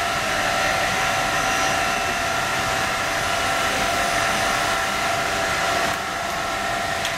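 Steady drone of running factory machinery: an even rushing noise, like a blower, with a steady whine running through it.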